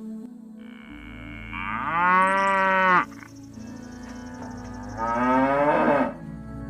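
Cow mooing twice, a long call followed a couple of seconds later by a shorter one, over soft background music.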